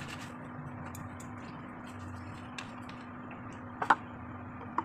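A few short plastic clicks and knocks as a plastic water bottle and a plastic ice-pop mould are handled, the loudest about four seconds in, over a steady low hum.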